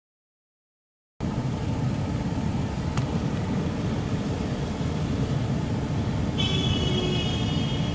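A moving car's road noise and engine rumble inside the cabin, after about a second of dead silence at the start. A high steady tone joins in about six and a half seconds in.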